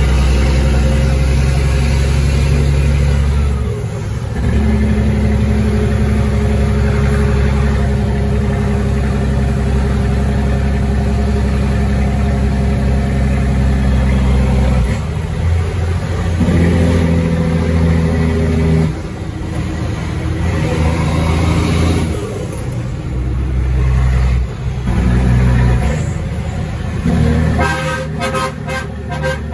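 Caterpillar 3306 inline-six diesel of a 1999 Ford Sterling truck running loudly. Its note holds steady for several seconds at a time, then breaks off and comes back at a different pitch several times.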